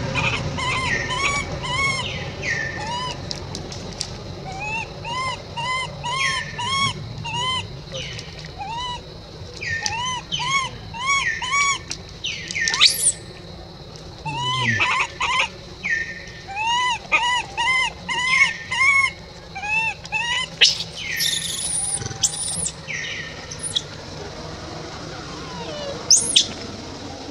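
Baby long-tailed macaque crying: runs of short, high, arching whimpers, several a second, broken by a few louder shrill cries.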